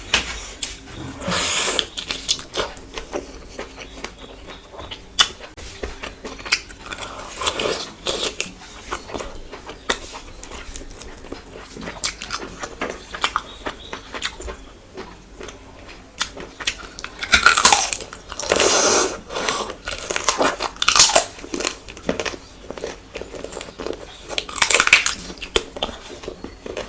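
Close-miked eating sounds: steady chewing and mouth smacking with many small clicks, broken by louder bites. The loudest come in a cluster about two-thirds of the way through.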